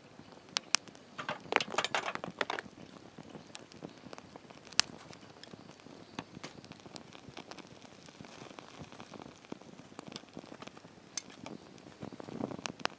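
Wood campfire crackling with scattered sharp pops, under a pot on the boil. About a second and a half in there is a short clatter of cookware.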